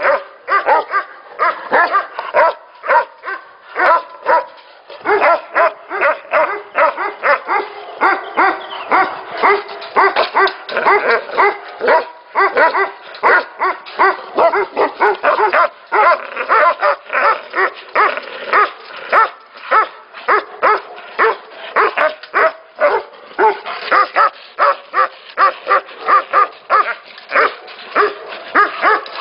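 Many Tibetan mastiffs barking at once, their barks overlapping without pause, several a second.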